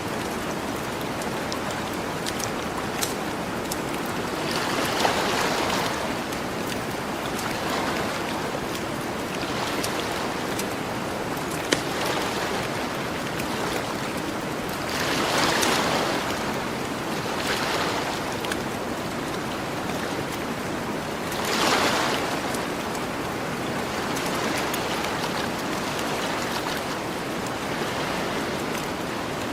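Gentle ocean waves washing onto a beach, swelling up and easing off four or five times over a steady surf hiss, with scattered crackles and pops from a campfire.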